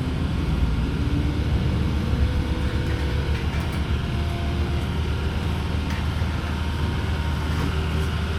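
A truck carrying a load of sand, driving along with its engine running steadily and a low road rumble, heard from inside the cab.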